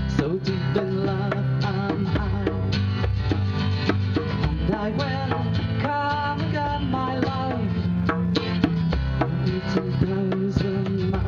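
Live acoustic folk music: a woman singing over acoustic guitar, with a hand drum played by hand keeping a steady beat of quick strikes.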